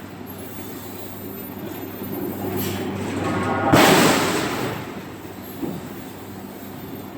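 Forging machinery in a factory: a steady low machine hum, and one heavy blow about three and a half seconds in that dies away over a second or so.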